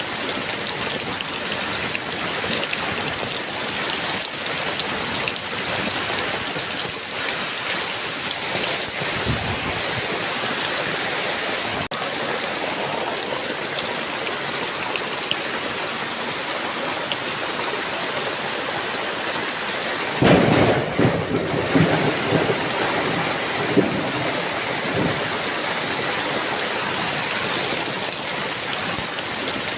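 Heavy rain falling steadily, with a clap of thunder about two-thirds of the way through that rumbles on for several seconds before fading back under the rain.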